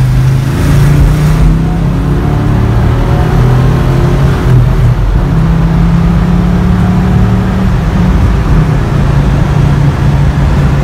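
Ford 351 Cleveland V8 of a Falcon GTHO Phase III replica running under way, heard loud from inside the cabin. The engine note holds, then drops back about four and a half seconds in and again about eight seconds in.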